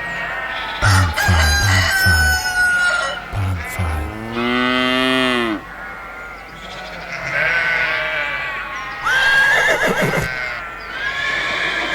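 Rooster crowing among clucking chickens, with a long crow about four seconds in and another near the end, over music with a low beat.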